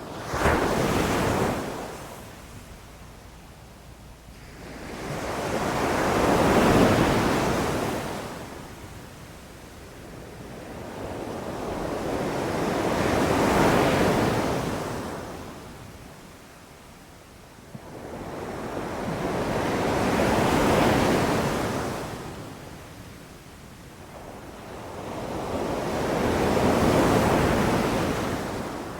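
Ocean waves breaking on a beach, the surf swelling and fading in a slow rhythm, one wave about every six to seven seconds, with a short sharp burst right at the start.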